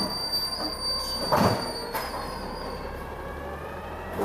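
Automated side-loader garbage truck working its arm to grab and lift a wheeled trash cart, its engine and hydraulics running with a steady low hum. There is a loud clunk about a second and a half in, and a thin high squeal that fades out partway through.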